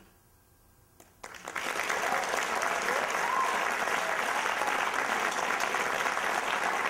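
An audience starts applauding about a second in, swelling within half a second to steady clapping, with a few voices calling out over it.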